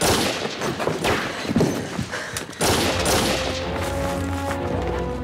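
Gunfire: a burst of rapid rifle shots cracking in quick succession for the first two and a half seconds. Then a dramatic music score with a low held drone takes over.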